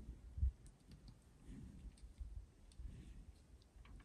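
Faint scattered clicks over low rumbling thumps, the loudest thump about half a second in.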